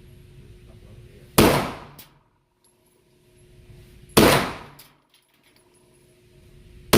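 Pistol shots: three single shots about three seconds apart, each a sharp crack that dies away over about half a second, the last right at the end.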